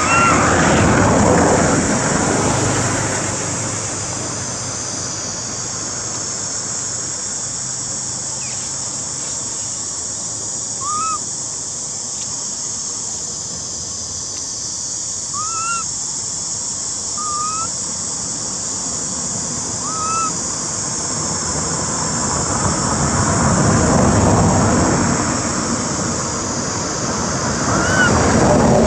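Outdoor ambience: a steady high hiss, with rushing, wind-like noise swelling near the start and again near the end, and about half a dozen short rising squeaks scattered through it.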